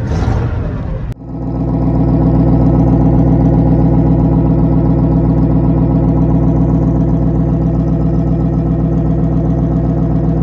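GAZ-66 truck's V8 petrol engine idling steadily just after a cold start on choke. There is a sudden short break about a second in, after which it runs evenly.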